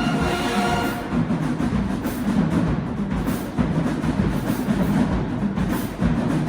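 High school band: the horns hold a chord for about the first second, then the drum section carries on alone, playing a steady, busy beat with heavy bass drums.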